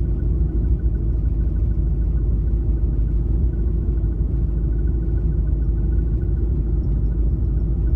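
Steady low rumble of an RV running, heard from inside the cab, with a faint steady hum over it.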